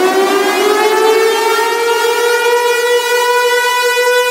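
A siren still winding up at the start, its pitch climbing a little for about the first second and then holding one steady, high note with strong overtones.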